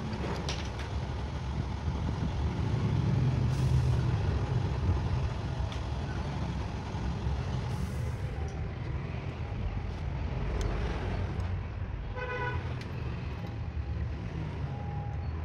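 Passing road traffic rumbling steadily, louder for a few seconds early on, with a short vehicle horn toot about twelve seconds in.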